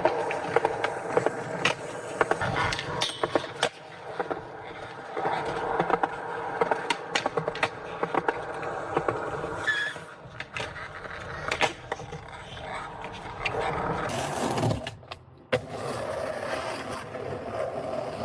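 Skateboard being ridden: wheels rolling with repeated sharp clacks of the board popping and landing.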